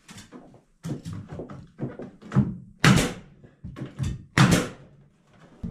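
Nail gun firing into a painted 1x8 pine ceiling plank held against wooden framing: a series of sharp knocks, the two loudest about three and four and a half seconds in.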